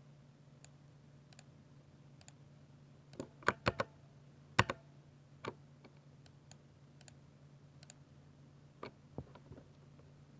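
Mechanical keyboard on a 60% layout with Ducky silver linear switches, typed on sparsely: a quick run of about five louder key clacks around three and a half to five seconds in, two more a little before the end, and faint key ticks in between.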